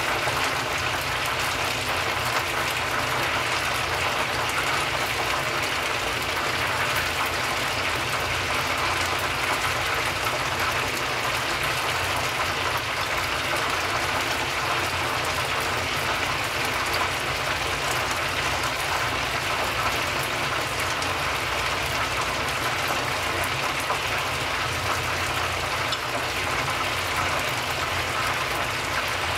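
Karaage chicken pieces deep-frying in a pan of hot oil: a steady, dense sizzle of many fine crackles.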